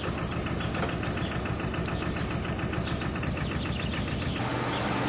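Narrowboat diesel engine idling with an even, knocking beat several times a second, settling into a steadier low hum near the end.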